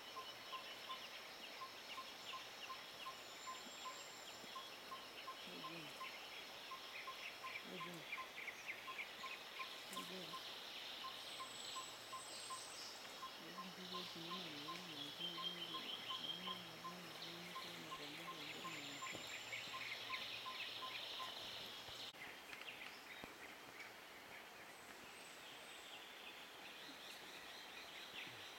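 Rainforest ambience: insects chirring steadily with a constant high insect tone, short high bird whistles every few seconds, and a faint regular ticking about twice a second that stops a few seconds before the end. A faint wavering low call is heard in the middle.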